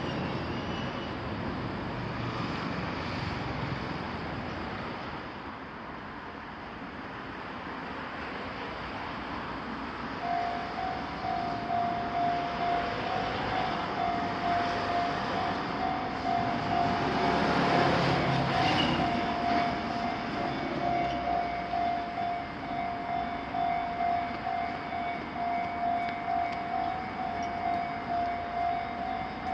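Japanese level-crossing warning bell starts about a third of the way in: an electronic ding repeating at a steady, even pace over street noise. Midway a passing vehicle's noise swells up and dies away, the loudest sound.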